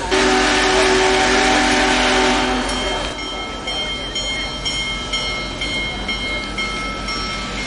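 Union Pacific Big Boy 4014's steam whistle sounds one long chord of several notes over a rush of steam, starting suddenly and lasting about three seconds. After it a bell rings steadily at a regular beat.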